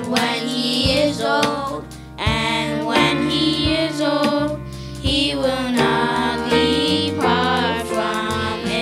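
Children singing together into microphones over instrumental accompaniment.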